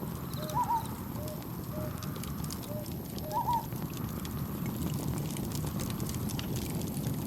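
Mixed night ambience: a wood campfire crackling over a steady low rush of wind and gentle waves. A cricket chirps briefly near the start, and short animal calls repeat about twice a second through the first half.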